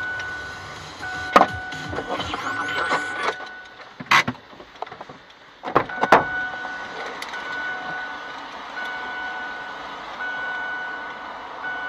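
Electronic beeping repeating as roughly one-second beeps with short gaps, interrupted by a few sharp knocks about a second in, at around four seconds and twice around six seconds.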